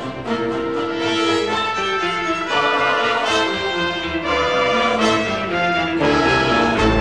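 Orchestral music with sustained chords that change every second or so; a deep bass comes in near the end.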